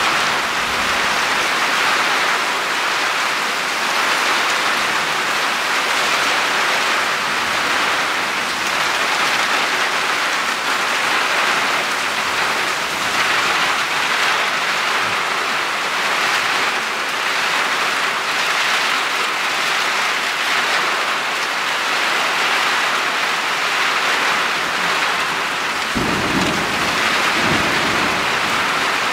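Heavy downpour: a steady hiss of rain falling on roofs and garden. Near the end a low rumble of thunder starts suddenly and carries on.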